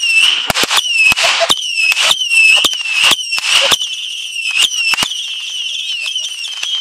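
A ground fountain firework spraying sparks, with a high whistle that keeps restarting, each time with a short downward swoop, over many sharp crackling pops and bursts of hiss.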